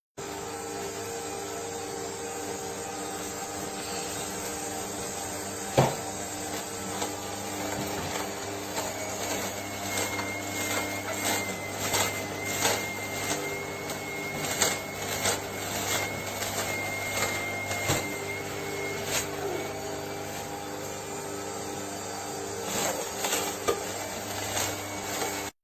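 AMZCHEF cold-press slow juicer running, its motor giving a steady hum while the auger crushes chopped fruit and vegetables with irregular cracking and snapping. There is a sharp knock about six seconds in and another near eighteen seconds, and a faint high whine through the middle.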